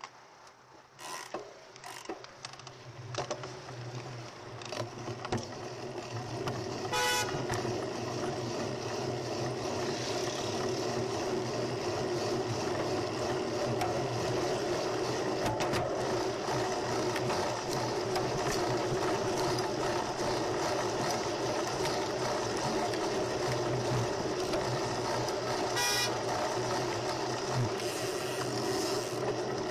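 Wind and road noise on a bicycle-mounted camera, building up over the first several seconds as the bike gets moving. A car horn gives a short toot twice, about seven seconds in and again near the end.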